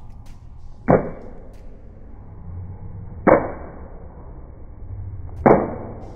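Chalked hands clapping together three times, a couple of seconds apart, each clap short and sharp and dying away quickly, as climbing/lifting chalk is worked into the palms.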